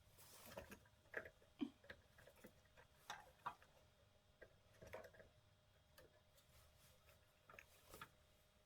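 Faint, irregular clicks and taps, one or two a second, of small parts and hand tools being handled while old ignition coils are swapped on an engine, over near silence.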